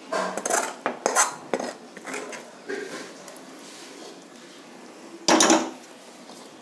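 Steel spoon scraping and clinking against a steel plate and pan as thick cooked rice-and-buttermilk batter is spooned out. The clinks come in a quick cluster at the start, then a few softer scrapes, and one louder scrape a little after five seconds in.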